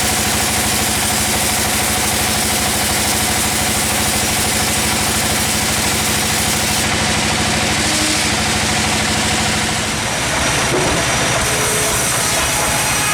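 A sawmill's engine running steadily, its note changing briefly about ten seconds in.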